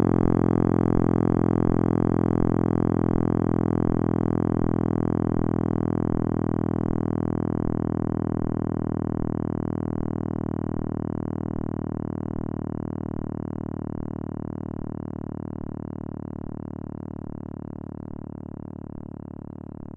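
Synthesized drone of many stacked steady tones presented as the sound of the Big Bang, fading slowly and evenly, with faint regular low ticks underneath.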